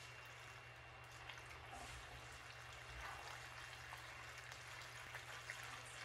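Macaroni in cheese sauce being stirred with a spatula in a pot: faint, wet stirring sounds with a few small ticks.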